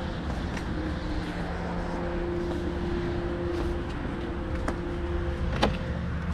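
A steady mechanical hum over a low rumble, holding one even pitch throughout, as from a motor or engine running. Two sharp clicks come a little before and about a second before the end.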